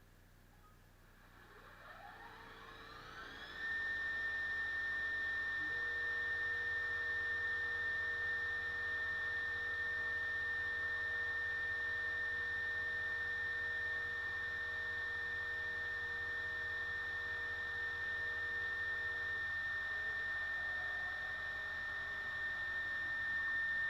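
CNC machine spindle spinning up with a rising whine, then running at steady speed as a high, even whine. A lower steady tone, likely from the machine's axis motors, runs beneath it, shifting about five seconds in and stopping near twenty seconds.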